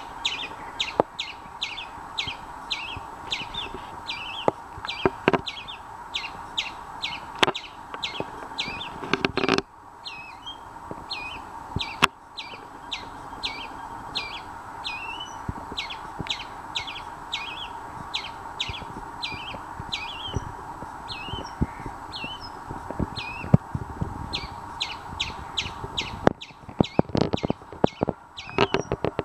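Indian palm squirrel calling: a long run of sharp, high chirps, about two a second, each dropping in pitch. They sound like a bird's but come from the squirrel. The chirps break off briefly twice, with a steady low hum and a few knocks underneath.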